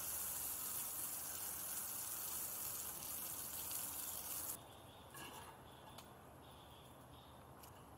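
Garden hose spray nozzle jetting a stream of water with a steady hiss, rinsing out a cage's feeding area. The spray cuts off suddenly about four and a half seconds in.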